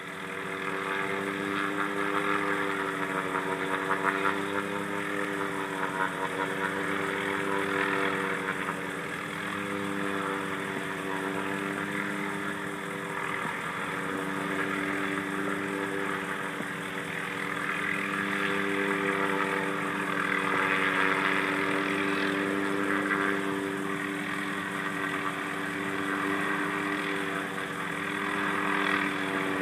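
Helicopter hovering with a hanging aerial tree-trimming saw beneath it: a steady drone of rotor and engine that wavers slightly in pitch and swells a little in loudness now and then.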